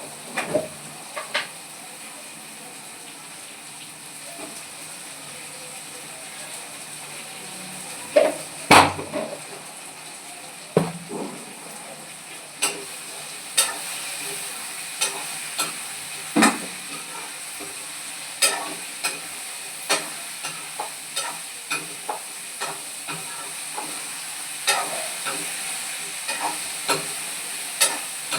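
Beans and potato sabzi sizzling in hot oil in a pan while it is stirred, the spatula knocking and scraping against the pan. The knocks come about twice a second from about halfway.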